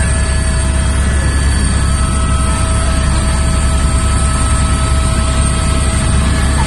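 Helicopter in flight heard from inside the cockpit: a steady drone of engine and rotor with a strong low rumble and a few steady whining tones above it.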